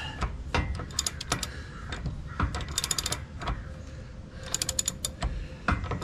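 Socket ratchet wrench clicking in several short runs as it is swung back and forth on a bolt of a boat trailer's bunk bracket, with a few knocks of metal in between.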